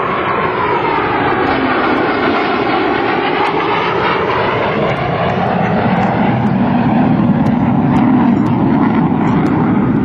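An F-15 Eagle fighter's twin turbofan engines, loud and continuous as the jet flies past in a hard, high-g turn. The pitch sweeps down over the first few seconds and then shifts again, and the noise swells a little past the middle.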